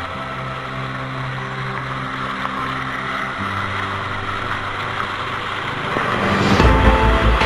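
Background music: sustained synth chords that change about three seconds in, then a pulsing beat with heavy bass that kicks in near the end.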